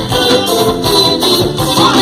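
Live forró band music: an instrumental passage with steady rhythm and sustained notes, without singing.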